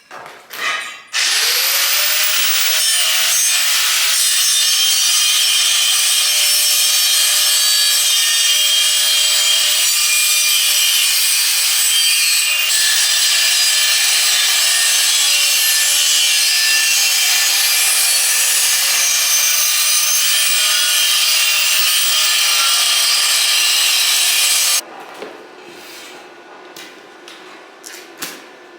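Angle grinder spinning up and grinding steel trampoline-frame tubing: a steady, loud, hissing grind over a held motor tone. It cuts off suddenly a few seconds before the end, followed by a few light metal clanks.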